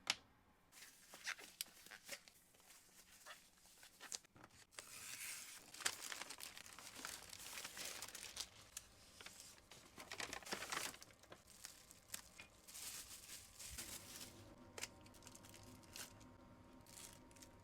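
Plastic packaging crinkling and tearing, with scattered clicks of handling, as a new turn signal relay is unwrapped. Near the end the rustling gives way to a faint steady hum.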